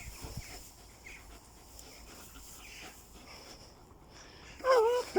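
German shepherd giving two short, pitched yowling barks in quick succession near the end, after a few seconds of faint low sounds.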